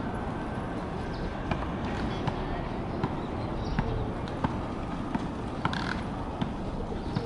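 A white domestic pigeon's feet tapping on wooden bench slats as it steps about: sharp single clicks at irregular intervals, roughly one a second, over a steady background hiss.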